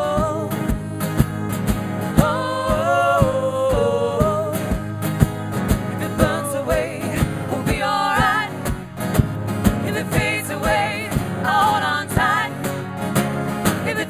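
Live acoustic band: women singing, their voices wavering in pitch, over acoustic guitars and a steady drum beat.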